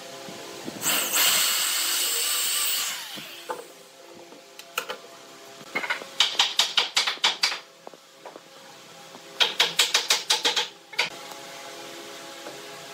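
A cordless drill boring a pilot hole into the end grain of a pine board for about two seconds. Then two runs of quick, even clicking, about eight clicks a second, as a double-ended screw is wound into the hole with a hand tool.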